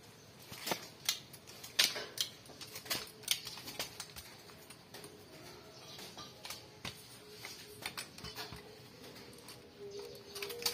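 Irregular sharp clicks and light knocks, scattered and uneven in spacing, from hand work in a body shop.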